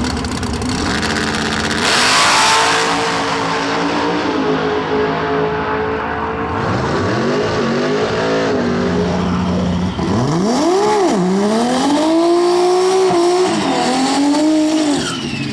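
Drag race car engine at full throttle: a loud noisy surge about two seconds in, then the engine note climbing, dropping and climbing again several times as the car accelerates.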